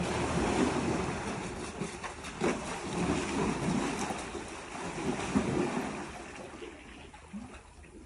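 Water splashing and sloshing as water buffaloes plunge into a pond and wade through it, fading over the last couple of seconds.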